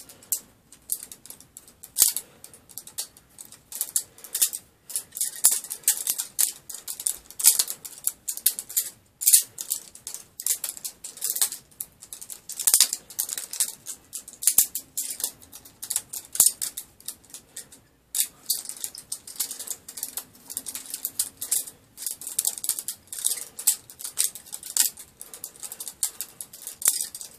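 Pakistani-made butterfly knife (balisong) being flipped, its handles and blade clacking against each other in rapid, irregular runs of sharp metallic clicks.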